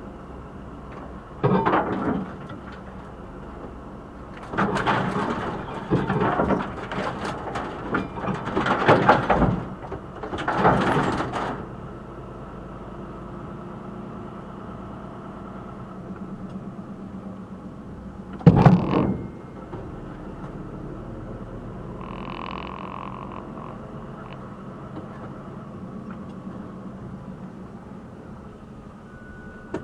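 Hedge and tree branches scraping and brushing along the body and roof of an HGV lorry as it pushes down a narrow lane, over the steady running of its diesel engine. There are several harsh scrapes in the first twelve seconds and one more, the sharpest and loudest, a little past halfway.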